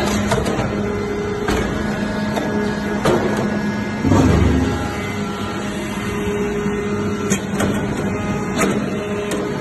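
Hydraulic metal-chips baler running: a steady machine hum with scattered metallic clicks and knocks, and a louder low thud about four seconds in.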